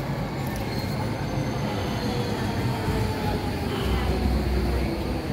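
Docklands Light Railway train pulling into the platform and slowing, a steady rumble with a faint whine that falls in pitch as it slows.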